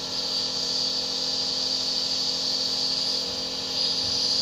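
Compressor nebulizer running: a steady motor hum under an even hiss.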